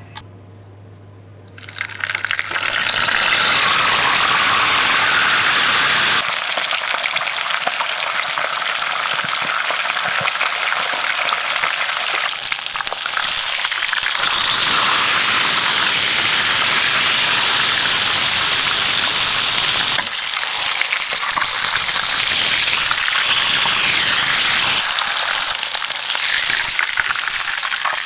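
Tilapia frying in a pan of hot oil: loud sizzling that starts suddenly about two seconds in, after a faint low hum.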